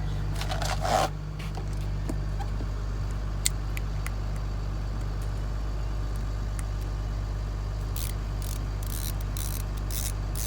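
Steady low hum of running machinery, with a few light clicks of tools being handled. Near the end come several short hissing spurts in quick succession.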